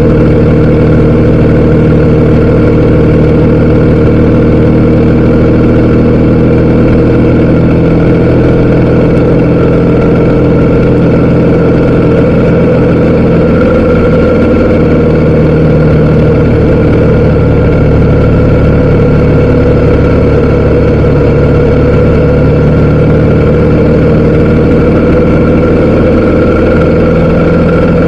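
BMW R 1250 GS Adventure's boxer-twin engine running steadily at low road speed, its pitch shifting slightly a couple of times.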